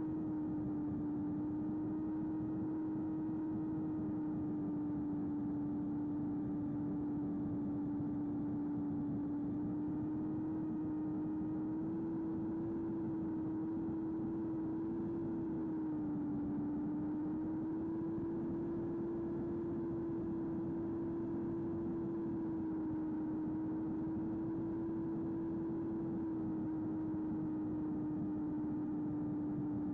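Small brushless electric motor and pusher propeller of a flying-wing RC plane in cruise, heard from the onboard camera: a steady hum with a hiss of rushing air. The pitch rises a little partway through, dips briefly and comes back up as the throttle shifts.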